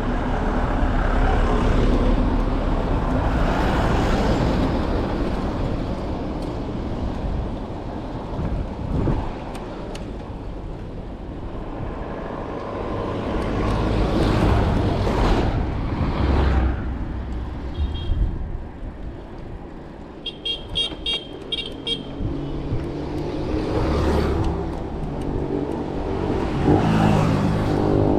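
Road traffic on a hill road: motor vehicles passing one after another, with a cluster of short, high horn toots about two-thirds of the way through.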